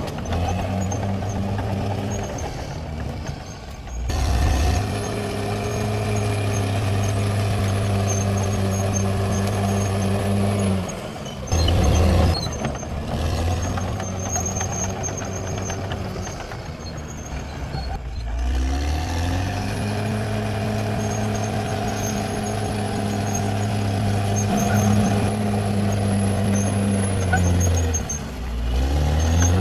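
Caterpillar D6R XL bulldozer engine sound running steadily, dipping and revving back up four times: about 4, 12, 19 and 28 seconds in.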